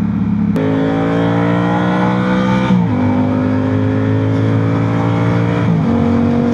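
Yamaha R7's parallel-twin engine accelerating hard, its pitch climbing steadily and dropping sharply at two upshifts, about three and six seconds in.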